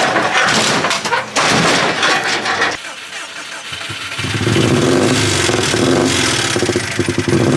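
Car engine sounds: a loud, rough noisy stretch for about the first three seconds, then after a short dip an engine running steadily from about four seconds in.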